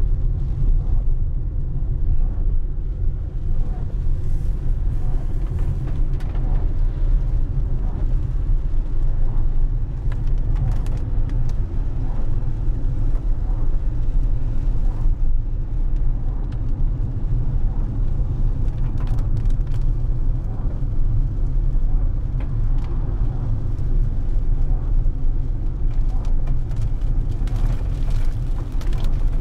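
Road noise inside a moving car on a wet road: a steady low rumble of engine and tyres, with occasional faint ticks.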